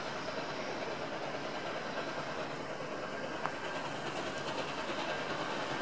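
Steam locomotive 5917, a NSW D59 class, hauling a train of carriages towards the listener: a steady rumble with no clear exhaust beats.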